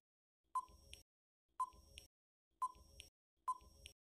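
Quiz countdown-timer sound effect: a short beep about once a second, four times, each dying away quickly, with a faint click after each.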